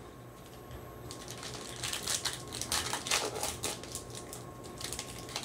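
Clear plastic wrapper of a trading card pack crinkling and crackling in quick, irregular clicks as it is handled and opened, starting about two seconds in and lasting a couple of seconds.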